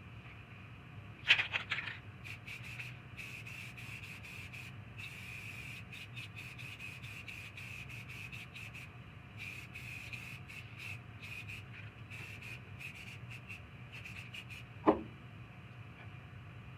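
Steady rubbing and scraping, like sanding or abrading a part by hand, with many small scratchy clicks over a low steady hum. A sharp knock comes about a second in and another near the end.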